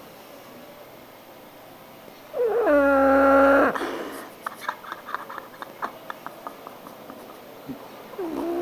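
Pug snoring heavily in its sleep: a loud, whiny snore with a clear pitch about two and a half seconds in that lasts a little over a second, then soft irregular clicking, with the next snore starting near the end.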